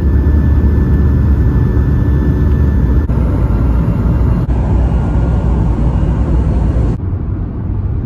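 Passenger jet cabin noise: a loud, steady rumble of engines and rushing air heard from inside the plane, in short clips joined by abrupt cuts. About a second before the end it cuts to quieter road noise inside a moving car.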